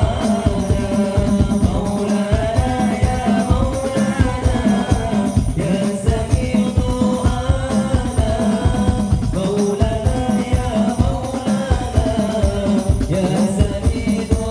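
Sholawat ensemble performing: a sung melody over a steady beat of rebana frame drums, with jingling percussion.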